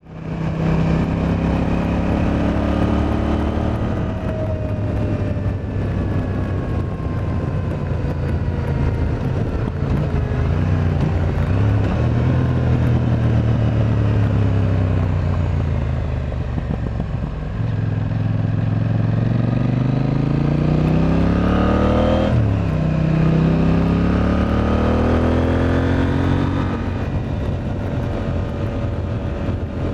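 KTM 890 Duke R's parallel-twin engine running through an Akrapovic exhaust, its pitch sinking as the revs fall and then rising. In the second half the engine climbs steadily through the revs, drops sharply at a gear change about two-thirds of the way in, then pulls up again.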